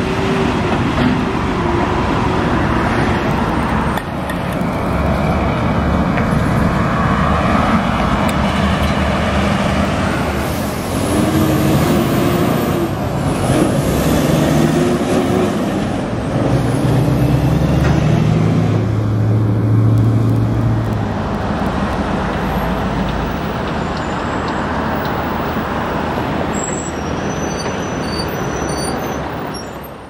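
Heavy diesel trucks driving past, their engines running loud and rising and falling in pitch as they pull along, over general traffic noise.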